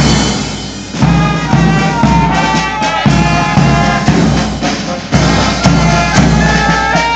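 Military marching band playing a march as it marches past: a bass drum beats steady time, and the brass takes up the tune about a second in.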